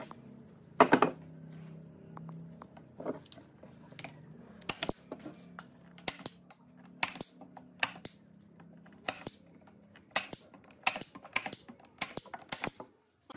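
Manual staple gun firing staples through a thin sheet into the edge of a wooden slab: a series of sharp snaps, often in quick pairs, roughly one a second and coming faster near the end.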